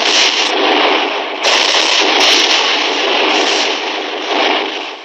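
Battle sound effects of rifle and cannon fire: a dense, continuous crackle of gunshots with heavier blasts standing out about a second and a half in and again a little after two seconds.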